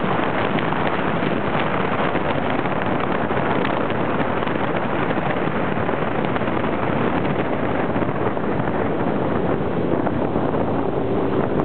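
Motorboat running fast along a river: a steady rush of wind buffeting the microphone mixed with engine and water noise, with a steady hum coming through near the end.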